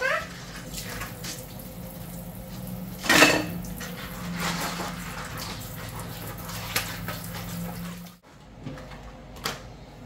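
Water sloshing over a steady low hum, with a loud clatter about three seconds in and lighter knocks later. The sound drops out abruptly a little after eight seconds.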